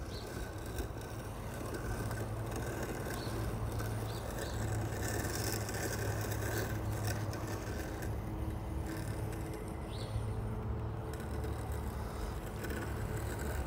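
Segway Navimow i105n robotic lawn mower running while it cuts grass: a steady low electric-motor hum, very quiet for a mower.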